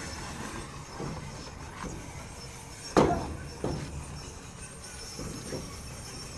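A steel bar clanking against a truck's steel wheel as it is levered in the wheel's centre hole. There is one loud ringing clank about three seconds in, a smaller one just after, and a few fainter knocks around them.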